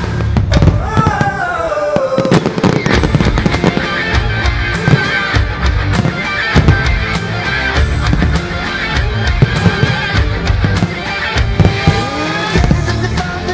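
Fireworks display: repeated shell bursts and crackling over loud music played with the show.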